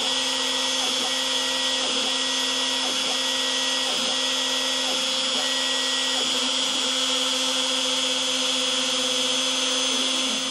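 DeWalt compact router on an X-Carve CNC running steadily at high speed, cutting fine detail into a wood blank with a 1/32-inch bit, with faint light ticks about twice a second; right at the end it begins to wind down.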